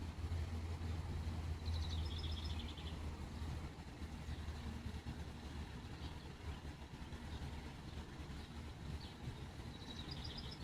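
Small birds chirping outdoors: a short chirping trill about two seconds in and another near the end, with a few faint single chirps between. Under them runs a steady low rumble, heaviest in the first few seconds.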